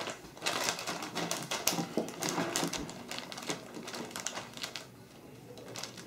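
Plastic zip-top bag being sealed by hand: crinkling film and a run of quick clicks as the zipper is pressed shut, thinning out near the end.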